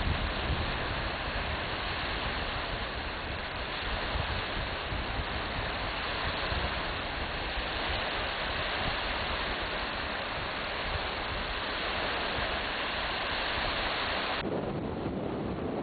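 Wind blowing across the microphone: a steady rushing hiss with low rumbling buffets. Near the end the sound changes abruptly and loses most of its high hiss.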